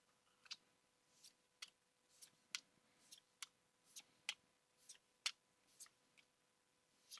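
Pokémon trading cards being flipped through one after another, each giving a short sharp snap, about two a second at uneven spacing.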